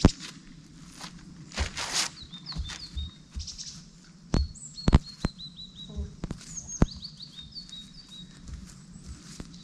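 Small birds chirping: many short falling chirps from about two seconds in. A horse's hooves step, a plastic tarp rustles about two seconds in as the horse walks off it, and there are a few sharp knocks in the middle.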